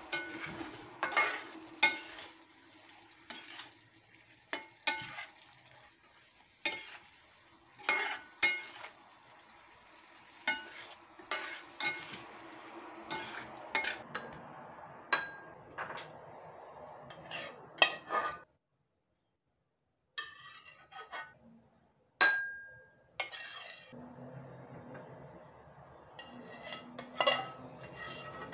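A spatula knocks and scrapes against a frying pan as eggs are turned in a sizzling masala, giving frequent sharp clicks over a low sizzle. Later come a few ringing clinks of a fork against a china bowl, over a low steady hum near the end.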